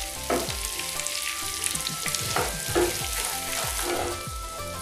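Chopped onion, carrot, green chillies and peanuts sizzling in hot oil in a non-stick frying pan, stirred and scraped with a wooden spatula as they sauté.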